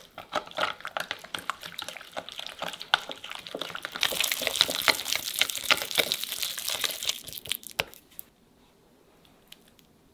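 Wire whisk beating tahini, lemon juice and crushed garlic in a glass bowl: rapid wet clicking and scraping of the wires against the glass. It grows louder and harsher about four seconds in as the tahini thickens and stiffens, and stops about eight seconds in.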